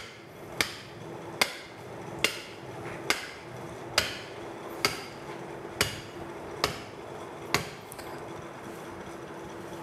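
Butcher's cleaver chopping down through a goat's backbone to split the rib cage in two. Nine sharp strikes, a little under a second apart, stop about three-quarters of the way through.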